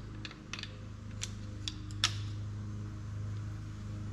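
About five sharp metal clicks in the first two seconds, the last and loudest just after two seconds in: a 17 mm wrench knocking against the nut and cap on a motorcycle fork's damper rod as they are jammed against each other. A steady low hum runs underneath throughout.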